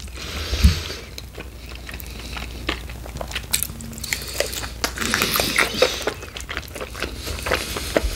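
Chewing and biting chicken wings close to the microphone: wet mouth clicks and crunchy bites, with a denser run of chewing noise about five seconds in.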